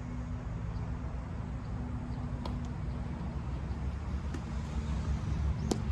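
Tennis balls struck by rackets: two sharp hits, one about two and a half seconds in and a louder one near the end, over a steady low hum.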